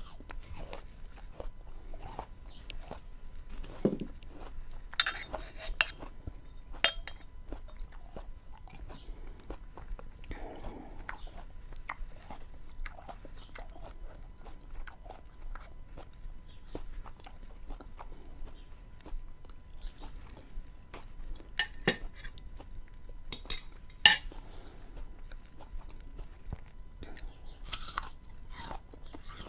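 Close-miked chewing and mouth sounds of someone eating beans with onion and tomato: many soft wet clicks, with a few sharp, loud crunches scattered through.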